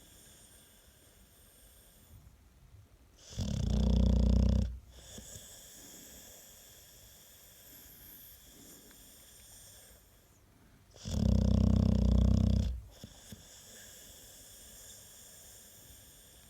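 American Staffordshire terrier snoring: two loud, low snores about seven seconds apart, each lasting well over a second, with quiet breathing between them.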